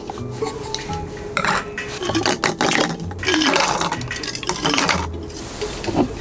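Ice cubes clattering into a stemmed wine glass in several irregular rattling bursts, with a sharp clink near the end.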